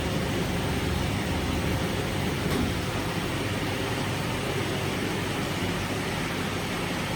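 Steady mechanical hum and hiss of a filter end cap welding machine running, with a faint click about two and a half seconds in.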